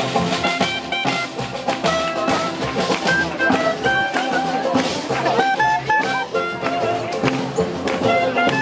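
Small live jazz band playing an upbeat swing tune, a clarinet carrying the melody over banjo and drum.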